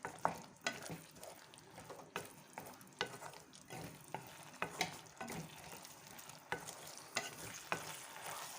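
A spoon stirring fried bread balls through a thick, hot Manchurian sauce in a pan: irregular scrapes and knocks against the pan over a steady hiss from the cooking sauce.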